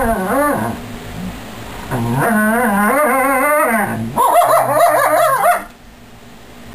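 Wolfdog whining and howl-whining in wavering, rising and falling pitch, in three bouts with short pauses: a possessive, warning vocalization at another dog to guard a chewed-up yogurt cup.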